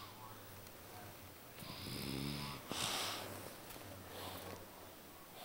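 A sleeping woman snoring: one snore about a second and a half in, lasting about a second, then a short breath out, and a fainter breath near the end.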